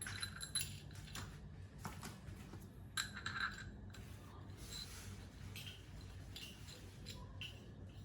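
Light metallic clinks and clicks of metal parts being handled, a few sharp ones at the start and around the middle and fainter ones later, over a faint low hum.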